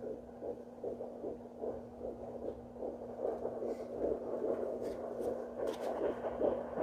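Fetal heartbeat picked up by a Simply Tots Baby Sound C home fetal doppler and played through its speaker: a rapid, even whooshing pulse of about three beats a second, over a steady hum.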